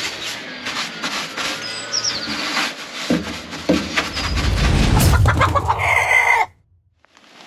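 Chickens clucking, with a short rooster crow about six seconds in, over a loud low rumble in the middle; the sound cuts off suddenly near the end.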